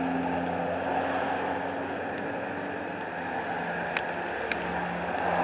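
Steady motor-vehicle hum and street traffic noise, with two sharp knocks about half a second apart near the end.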